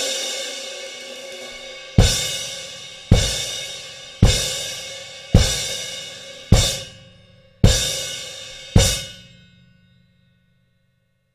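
Basileia Heritage crash cymbal: a ringing wash fading away, then seven single crash strikes about a second apart, each left to ring and decay. One strike a little past the middle is cut short, and the last rings out to silence.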